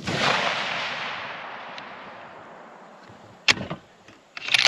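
A 6.5 Creedmoor rifle shot right at the start, its report rolling away and fading over about three seconds. Then the bolt of the Mossberg Patriot bolt-action rifle is worked, with a sharp metallic click about three and a half seconds in and a quick run of clicks near the end.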